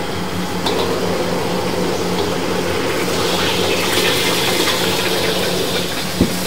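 Steady rushing kitchen noise with a low hum, from a commercial wok kitchen, and a single sharp knock about six seconds in.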